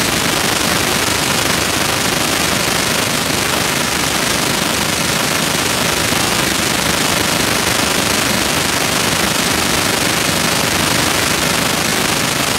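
A crowd cheering and clapping during a swimming race: a dense, steady wash of noise that does not let up.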